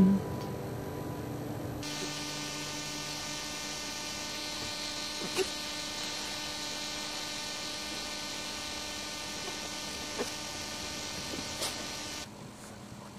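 A steady electrical buzz with many evenly spaced overtones, starting about two seconds in and stopping shortly before the end, with a few faint ticks over it.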